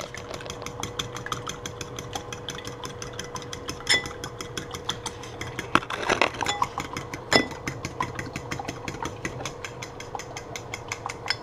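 Two eggs being beaten in a bowl: a utensil clicking against the bowl in a rapid, even rhythm, with a few louder knocks.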